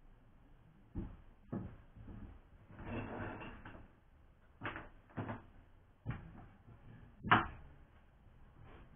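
Lengths of wooden batten being handled and set down on the floor: about six separate wooden knocks, the loudest about seven seconds in, with a brief rough rustle around three seconds in.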